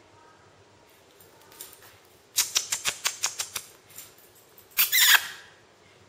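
A quick run of about eight sharp rustling clicks over just over a second, then a louder, half-second rustle about five seconds in.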